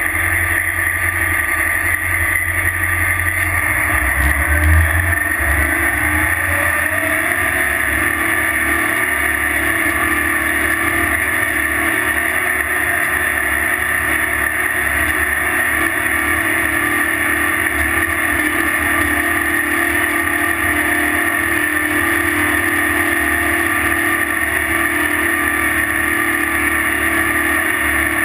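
Terex TS-14B scraper's diesel engines running steadily on the move, a loud drone with a heavy low rumble. The engine note swells and climbs briefly about five seconds in.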